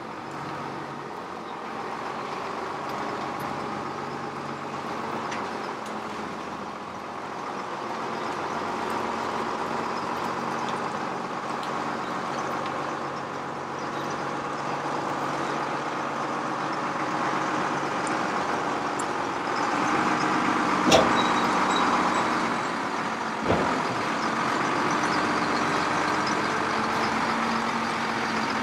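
Heavy truck's diesel engine running at low speed, slowly towing a heavily loaded lowboy trailer, growing a little louder. Two sharp knocks about 21 and 23 seconds in.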